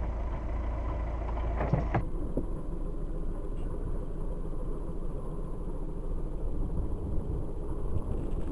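Volkswagen car engine running at idle, a steady low rumble. About two seconds in the sound changes abruptly from the deep rumble heard inside the cabin to a thinner engine-and-street sound heard from outside the open driver's door.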